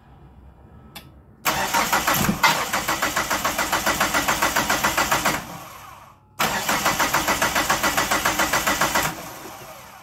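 Chrysler PT Cruiser's starter cranking the engine twice, a steady fast chugging of about four seconds and then about three, and the engine never catches: a crank-no-start condition, with the engine turning over but not firing.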